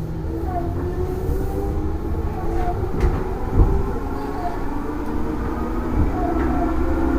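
Tobu 10030 series electric train with field-chopper control running and gathering speed: motor and gear whine rising slowly in pitch over a low wheel rumble, with a few sharp knocks from the rails, the loudest about three and a half seconds in.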